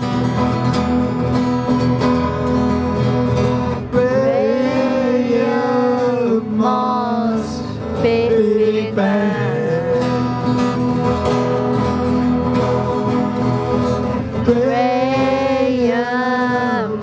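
Live acoustic band: several acoustic guitars strummed together with voices singing over them, the sung phrases coming and going over the steady guitar bed.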